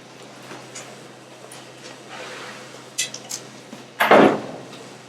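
Steady low hum with a few light clicks and knocks, then one louder short noise about four seconds in.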